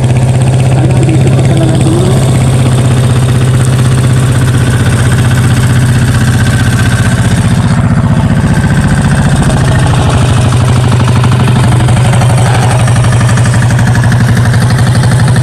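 Small fishing boat's engine running steadily at an even speed, a loud, constant hum.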